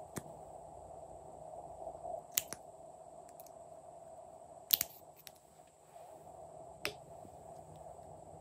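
Plastic caps of lipstick-style lip gloss tubes clicking as they are pulled off and pushed back on. A few sharp clicks come a couple of seconds apart, the loudest about five seconds in, over a faint steady background hum.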